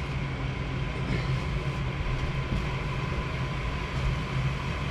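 Gas furnace running through its start-up cycle, the draft inducer motor giving a steady hum with a faint steady whine above it.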